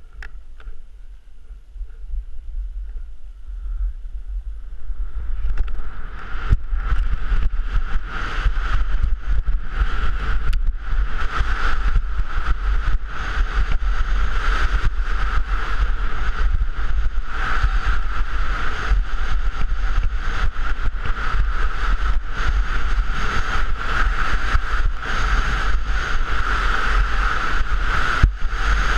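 Wind buffeting the microphone and skis sliding and scraping over packed snow on a fast downhill run, with scattered knocks from bumps. It builds over the first five or six seconds as the skier picks up speed, then stays loud and steady.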